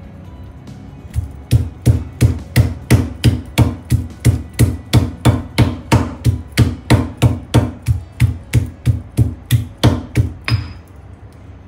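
Stone pestle pounding a slice of cooked beef flat in a stone mortar: a steady run of strikes, about three a second, starting about a second in and stopping near the end.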